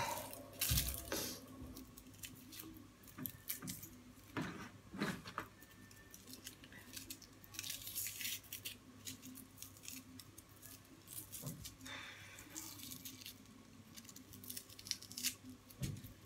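A spring onion being cut with a knife: scattered, irregular light knife taps and clicks, with a few short stretches of rustling and tearing.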